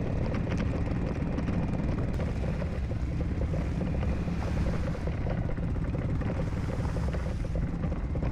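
Single-cylinder dual-sport motorcycle engine running steadily while riding a gravel and mud track, heard from a camera on the bike, with wind noise on the microphone.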